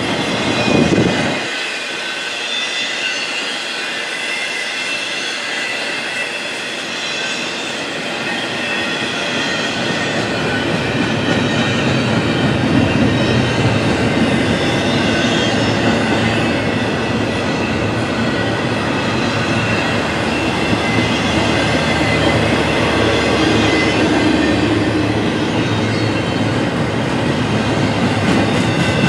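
Double-stack intermodal freight train rolling past: a steady rumble of wheels on rail with a high, steady squeal from the wheels, and a brief low thud about a second in. The low rumble fills in and the train grows louder from about ten seconds in.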